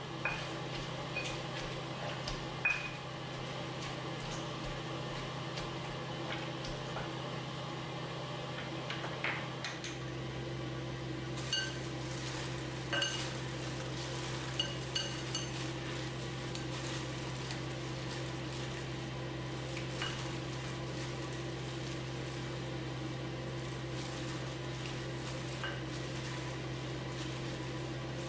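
A stone pestle working in a granite mortar, with scattered knocks. About ten seconds in, this gives way to a few sharp clinks against a glass mixing bowl as meat is mixed by hand. A steady low hum runs underneath throughout.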